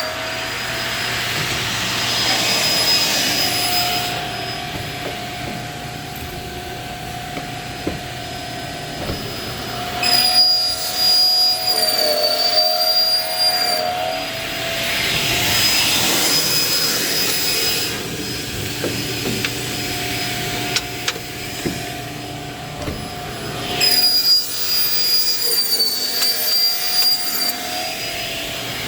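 Saw on a converted PVC pipe-cutting machine running steadily with a whine, cutting through PVC pipe in a repeating cycle about every 13 seconds. Each cut is a burst of rasping sawing noise.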